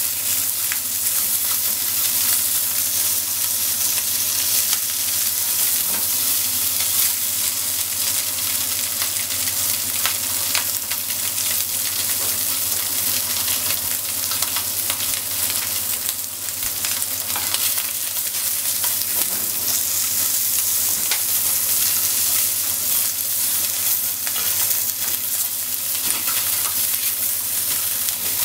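Sliced wiener sausages sizzling steadily in oil in a nonstick frying pan, with light clicks and scrapes of wooden chopsticks turning the pieces against the pan.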